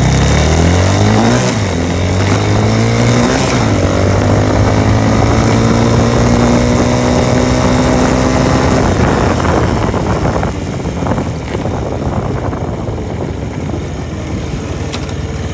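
Yamaha TT-R90's small four-stroke single-cylinder engine accelerating hard through the gears: the pitch climbs and drops back at upshifts about a second and a half and three and a half seconds in. It then holds steady at high revs in third gear until about nine seconds in, after which the engine note gives way to a quieter, rougher noise.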